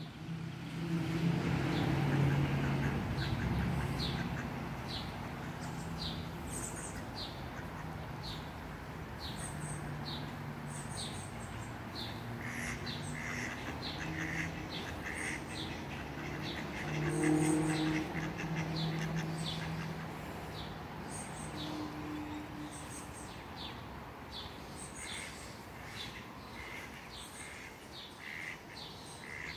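Mallard ducks quacking and a small bird chirping about once a second, over a steady low hum that swells twice.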